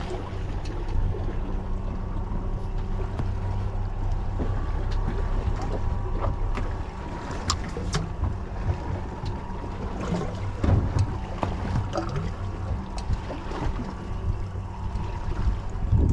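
Boat's engine idling with a steady low hum, under wind on the microphone and water noise, with a few sharp clicks.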